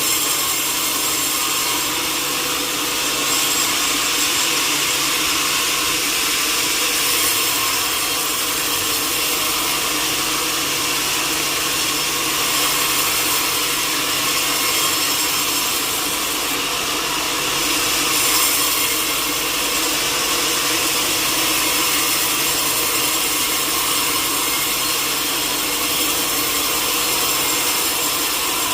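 Sawmill saw cutting through teak wood: a steady, continuous sawing noise over a constant machine hum.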